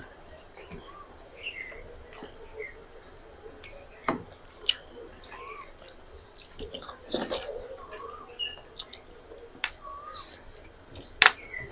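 Eating by hand: fingers mixing and scooping wet rice and curry on steel plates, with chewing and mouth sounds and scattered sharp clicks, the loudest near the end. Faint bird chirps in the background.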